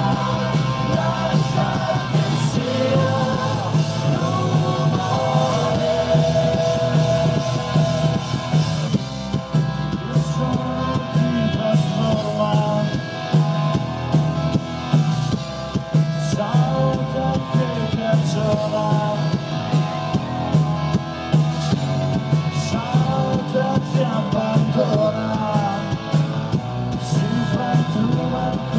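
A rock band playing live: electric guitar, bass and drum kit, with sung vocals over them.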